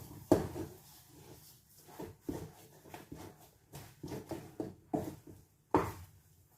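A spoon knocking and scraping against a cooking pot as thick ugali (maize-meal dough) is stirred and mingled. The knocks are irregular, with the loudest about a third of a second in and again near the end.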